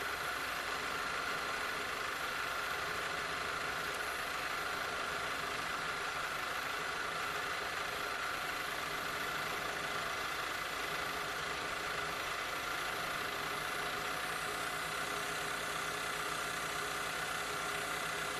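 Stepper-motor CNC milling machine running steadily, its spindle turning a 1 mm end mill that is cutting a narrow groove into a screw head. A steady whine and hum with no breaks.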